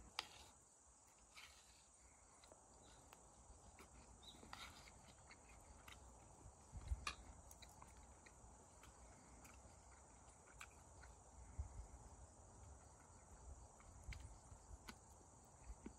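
Faint, steady insect chirring, with scattered small clicks and a few soft low thumps, the loudest about seven seconds in.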